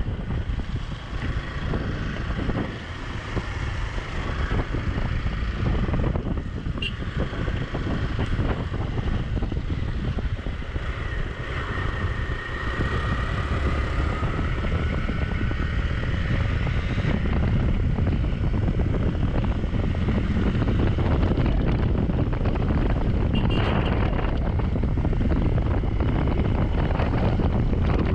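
Hero XPulse 200 single-cylinder motorcycle engine running while riding an off-road trail, its note rising and falling with the throttle, with wind buffeting the action camera's microphone.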